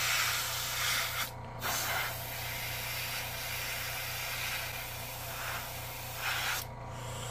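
Gravity-feed airbrush spraying paint, a steady hiss of air that stops briefly about a second in and again near the end as the trigger is released.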